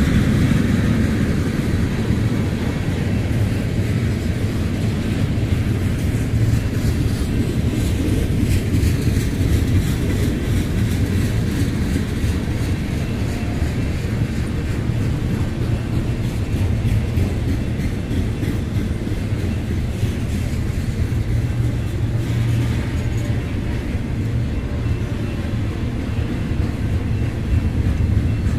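Union Pacific train rolling slowly past: a steady low rumble.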